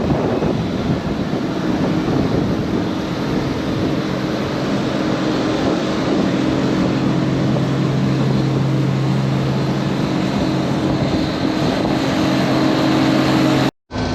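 Diesel engine of heavy farm machinery running steadily under load, heard loud and close as from the cab, with a constant low hum in it. The sound cuts off abruptly near the end.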